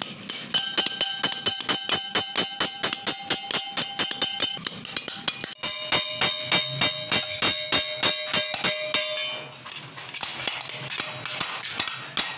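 Hammer striking a stainless steel sheet held on a steel bar, in two quick runs of about four to five blows a second, each blow leaving the metal ringing. Near the end the blows turn to lighter, uneven taps.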